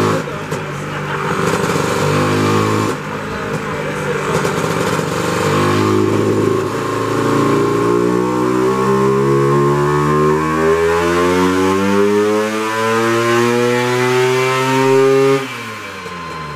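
Lambretta scooter's two-stroke single-cylinder engine during a power run on a roller dyno. In the first few seconds the engine note jumps in steps, then the revs climb steadily for about nine seconds under full load. The revs drop suddenly near the end.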